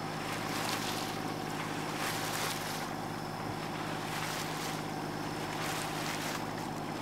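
Water rushing past a sailboat's hull and wind on the microphone, swelling every second or two, over a steady low hum.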